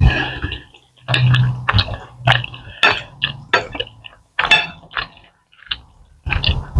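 Forks and knives clinking and scraping against ceramic dinner plates as two people eat: a string of short sharp clinks, roughly one every half second.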